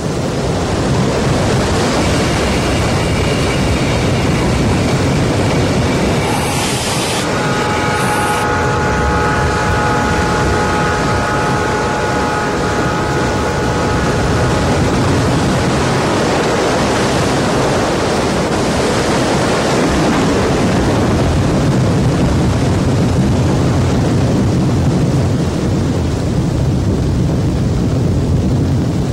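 Floodwater rushing, a loud steady noise throughout. Over it a steam locomotive whistle sounds long held chords: a higher blast from about two seconds in, then a lower, longer one until about fifteen seconds in.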